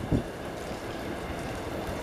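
MBTA train running by with a steady low rumble and wind noise on the microphone, with one thump of the wheels just after the start.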